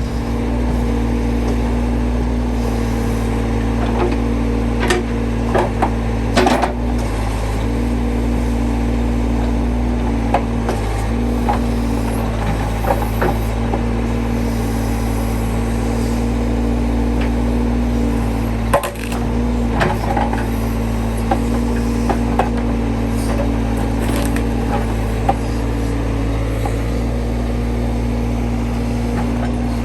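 Case 580C backhoe's diesel engine running steadily, with scattered knocks and clatters of wood being handled. The loudest is a sharp crack a little past the middle.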